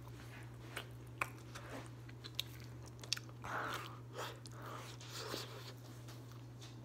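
A person biting and chewing mouthfuls of DiGiorno pizza: scattered wet mouth clicks and crunches of crust, with a few short noisy chewing sounds. A low steady hum runs underneath.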